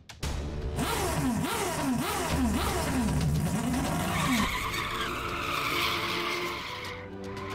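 Added sound effect of a car accelerating hard with squealing tyres, its pitch sweeping up and down through the first four seconds, followed by an electric crackling whoosh that stops shortly before the end.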